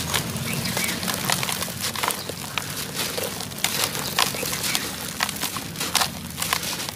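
Hands crushing and crumbling dry, powdery chunks in a container: dense, irregular crackling and crunching with many sharp clicks, over a low steady hum.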